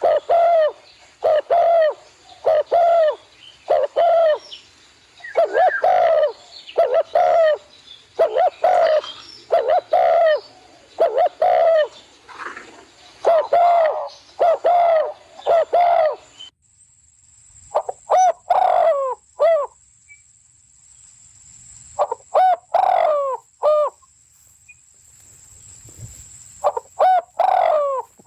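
A bird calling over and over, loud short harsh notes about once a second. About two-thirds of the way through the sound changes abruptly, a faint steady high whine comes in, and the calls return in short clusters.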